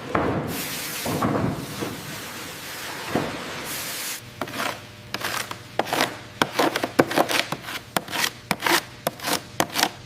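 Rough scraping and rubbing, then from about four seconds in a quick, irregular run of sharp knocks and clicks over a faint low steady hum.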